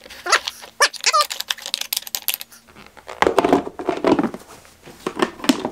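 Oil-coated wooden utensils clicking against one another and the plastic storage box as they are shifted by hand, a quick run of light clicks. About three seconds in, denser handling noise with more clicks as the clear plastic lid is fitted and pressed onto the box.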